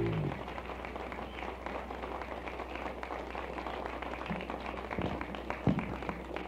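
The band's final chord cuts off, followed by scattered applause and clapping from a small studio audience. A steady low hum from the broadcast recording runs underneath, and a few soft thumps come near the end.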